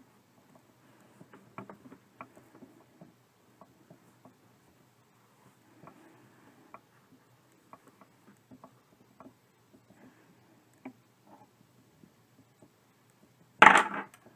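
Quiet handling sounds of hand-sewing a plush teddy bear's seam: faint scattered ticks and soft rustles of needle, thread and faux fur. A brief, much louder rustle comes near the end.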